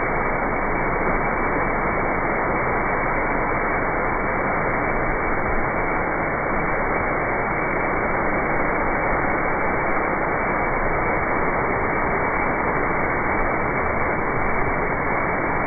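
Steady, unbroken hiss of polymer-coated fertilizer granules pouring from a bulk bag into a spreader truck's hopper.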